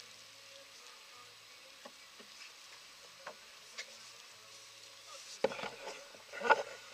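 Faint steady hiss of wind and sea aboard a sailing yacht, with a few small clicks. About five and a half seconds in, rustling and two sharp knocks as a waterproof jacket brushes and bumps against the camera.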